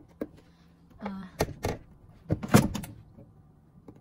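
A hand pressing and tapping the control panel of a Power AirFryer Pro air fryer oven, giving a run of sharp clicks and knocks. The loudest knock comes about two and a half seconds in.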